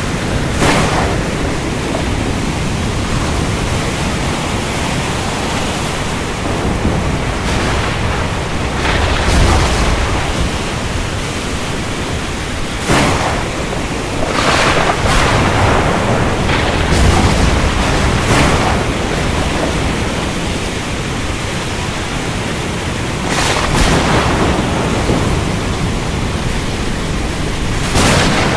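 Thunderstorm over the ocean: a steady rush of rain and sea, with deep rumbles of thunder about a third and two-thirds of the way through, and several short, sharp bursts.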